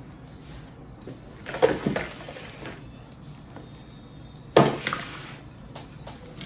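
Two sharp knocks, each followed by a short clatter, about three seconds apart, over low room noise.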